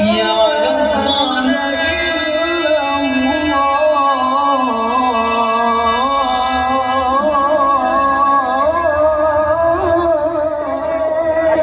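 Loud music played through a horeg sound system: a wavering, ornamented melody line over steady held tones and a low bass.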